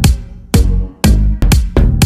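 Electronic dance-style background music with a steady, bass-heavy beat at about two beats a second.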